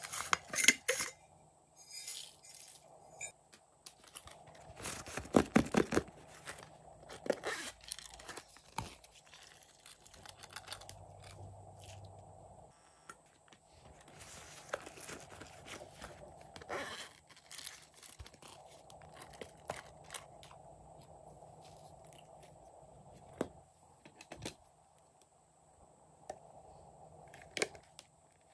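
Hands handling plastic toy containers and a silicone pop-it fidget toy: irregular clicks, taps and crackly scrapes, loudest near the start and about five seconds in.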